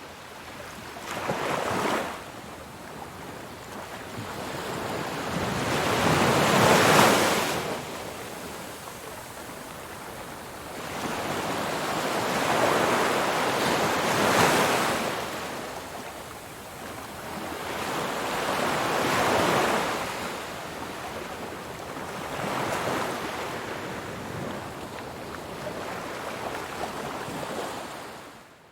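Atlantic Ocean waves rushing and washing past in slow swells, each building and fading over a few seconds, about five in all, with wind on the microphone.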